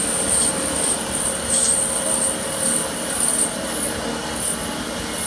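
Drill bit of a CNC drilling spindle boring into a metal plate, giving a steady high-pitched squeal that wavers slightly, over the running noise of the machine.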